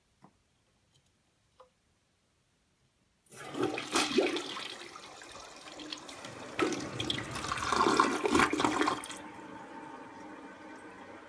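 American Standard Hydra toilet flushing. After a few faint clicks, the water rushes loudly through the bowl for about six seconds, then settles to a quieter, steady run of water as the toilet refills.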